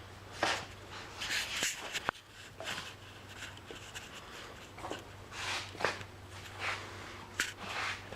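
Irregular scraping and swishing strokes with a few light knocks, from oil-based paint being stirred and thinned in a can, over a faint steady low hum.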